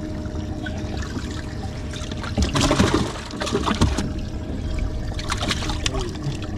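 Water splashing and sloshing in a boat's livewell as striped bass thrash and a hand reaches in among them, in louder bursts about two and a half seconds in and again near the end.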